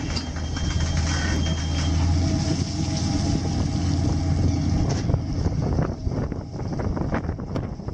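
Fishing boat's engine or deck machinery running with a steady low hum while a full net is hoisted aboard. About five seconds in, the hum drops away and wind noise with irregular crackles takes over.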